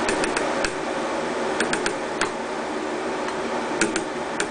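Sharp ticks in small clusters of two or three, about a dozen in all, over a steady hiss: a pond slider turtle's claws tapping on the tank glass as it paddles.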